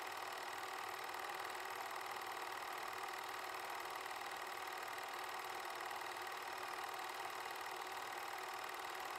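Film projector running with a steady mechanical whirr.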